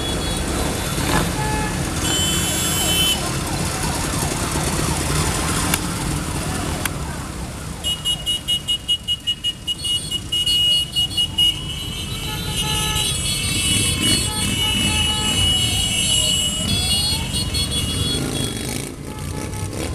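A column of motorcycles riding past on a wet road, engines running in a steady rumble. About eight seconds in comes a rapid string of high beeps lasting some three seconds. It is followed by a siren-like wail that rises and falls slowly a couple of times.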